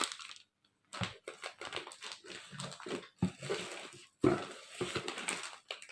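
Plastic-wrapped food packets rustling and crinkling as they are handled and lifted out of a gift box, with a few sharp handling knocks.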